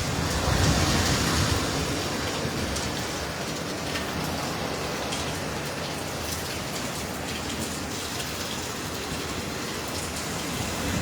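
Heavy hurricane rain pouring steadily, swelling a little louder about a second in.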